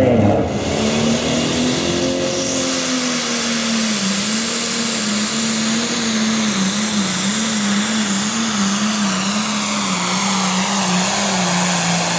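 Diesel pulling tractor's engine running flat out under load as it drags a weight-transfer sled: a loud, steady high-rev drone with a faint high whine above it. The pitch sags slightly after the first few seconds as the sled's load builds.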